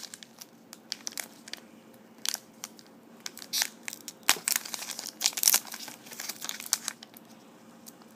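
Foil wrapper of a trading card pack crinkling and tearing as it is pulled open by hand, in short irregular bursts with brief quieter pauses between them.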